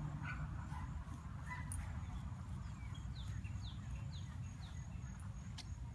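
Small dog nosing and scratching in loose dirt, a few faint scrapes over a steady low rumble. About three seconds in comes a quick run of four short, high, falling chirps.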